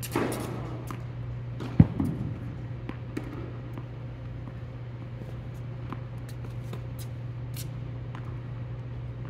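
Tennis ball hits echoing in an indoor court: a softer hit at the start, a sharp loud racket strike about two seconds in and a weaker one about a second later. A steady low hum runs underneath.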